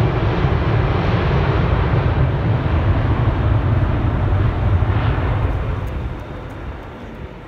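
Twin jet engines of a Boeing 787 at high thrust as the airliner runs down the runway on its takeoff roll: a loud, steady low rumble that swells about five seconds in and then fades as the aircraft draws away.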